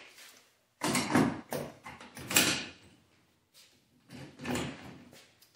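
Stainless-steel transom wheel leg being slid into its aluminum mounting bracket on a kayak and clipped in place: two bursts of metal knocks, clacks and scraping.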